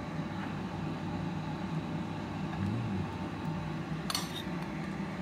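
Steady low machine hum, with a single light clink about four seconds in.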